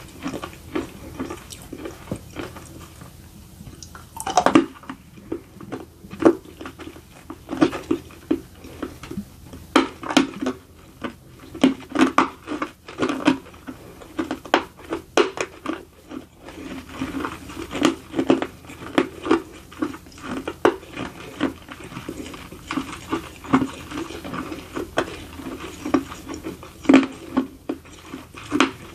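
A person chewing crunchy baked edible clay close to the microphone: a steady run of crisp crunches, with a brief lull about two to four seconds in.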